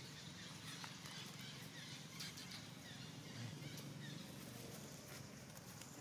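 Faint rustling and crunching of dry leaves under a macaque's steps as it walks off with a baby clinging beneath it, with scattered small ticks and a few faint high chirps.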